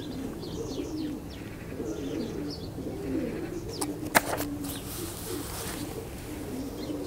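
Racing pigeons cooing, low wavering coos overlapping one another without a break, with one sharp click about four seconds in.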